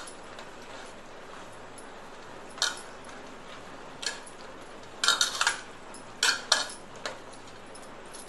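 A hand mixing marinated prawns on a stainless steel plate: scattered short clinks and taps against the metal, most of them in a cluster about five to seven seconds in.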